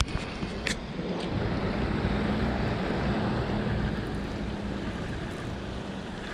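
Sea surf washing against the rocks, with wind on the microphone. A low steady hum swells in the middle and fades again, and there are two sharp clicks near the start.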